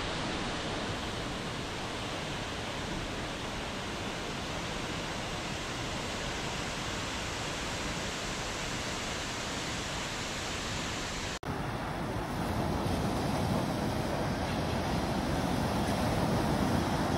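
Waterfall rushing steadily, a continuous even roar of falling water. About eleven seconds in it breaks off abruptly and gives way to a lower, rougher rush of waves and wind.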